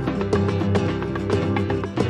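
Background music with plucked guitar notes and a quick, steady rhythm.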